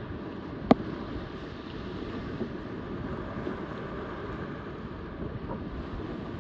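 Wind buffeting the microphone over a steady rush of rough water and a boat underway, with one sharp knock under a second in.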